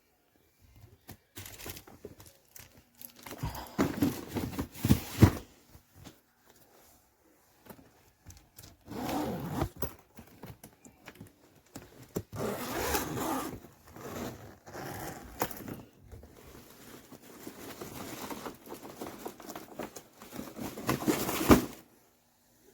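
Handling of a hardshell carry-on suitcase: irregular bouts of scraping and rustling with a few knocks, the loudest bout about four to five seconds in and another near the end.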